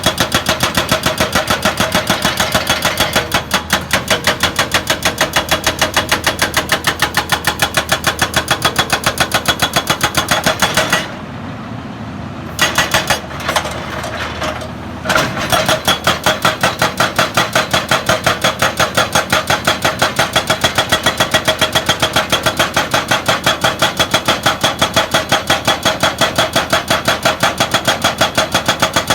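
Excavator working, with a rapid, even train of sharp pulses over its engine. The pulsing breaks off for a few seconds about a third of the way in, then starts again.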